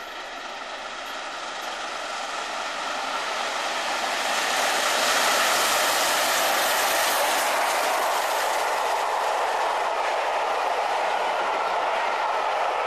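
Peppercorn A1 Pacific steam locomotive 60163 Tornado passing at speed with its train of coaches: a rushing train noise that grows to its loudest about five seconds in as the engine goes by, then holds steady with the clatter of the carriages rolling past.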